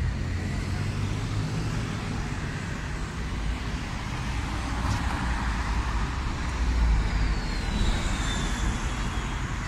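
City street traffic: cars passing with engine and tyre noise, a steady rumble that swells as a vehicle goes by about seven seconds in. A faint high whine falls in pitch near the end.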